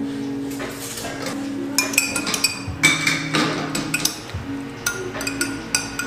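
Glass and ceramic coffee ware clinking: a string of sharp clinks, several with a brief ring, busiest around two to three seconds in and again near the end, over soft background music.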